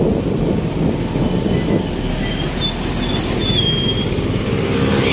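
Steady low rumble of engine and wind noise on a moving motorcycle, with a few faint high squeals about two to four seconds in.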